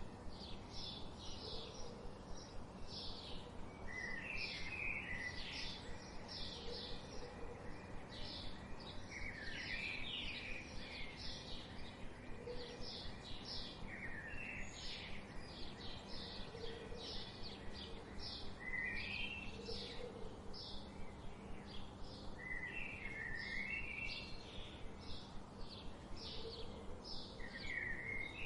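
Forest bird chorus: many short, high chirps and trills repeating through, over a faint steady background hiss.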